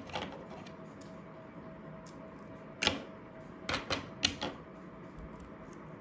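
A few short clicks and crackles from hands working a roll of adhesive tape: one near the middle, then two quick pairs, over a faint steady hum.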